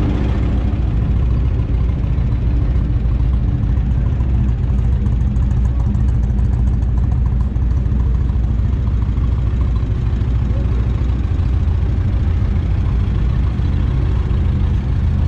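2014 Indian Chieftain's V-twin idling steadily through its aftermarket Freedom exhaust, a low, even running sound with no revving.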